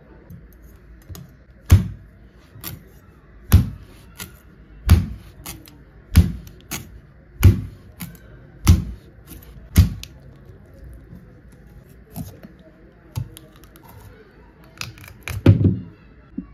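Large kitchen knife chopping into the husk of a green coconut on a wooden chopping board: seven heavy chops a little over a second apart, then a few lighter cuts and a quick run of chops near the end.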